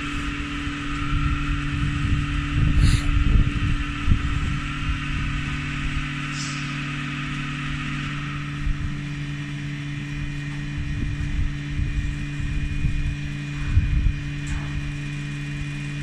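Steady electric machine hum from a 100 L vacuum dual planetary mixer during a vacuum test, with the tank holding about −0.08 MPa of vacuum. A higher hiss fades out about halfway through, and irregular low rumbles come and go.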